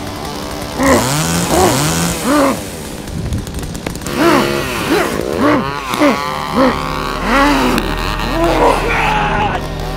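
A chainsaw revving up and down over and over, mixed with a woman's breathless, sobbing cries.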